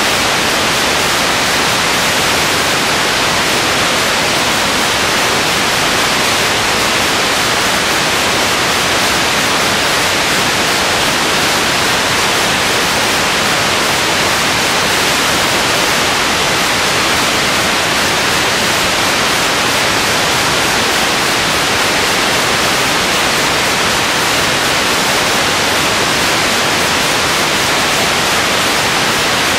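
Loud, steady static hiss that never changes, with no other sound heard in it.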